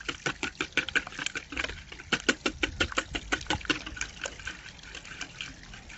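Metal wire whisk beating eggs in a plastic jug, the wires clicking against the sides in a fast, even rhythm of about six strokes a second, thinning out after about four seconds.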